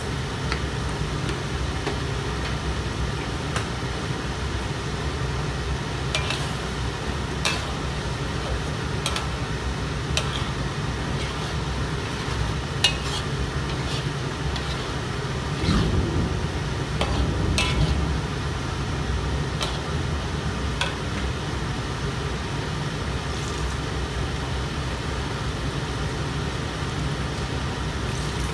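Metal spatula stirring thick sambal in a wok, with short scrapes and taps against the pan every second or two, over a steady low hum.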